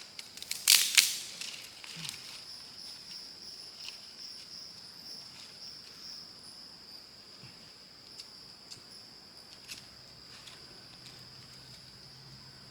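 Steady high-pitched insect trill in the forest. Two sharp knocks about a second in are the loudest sounds, followed by a few fainter clicks.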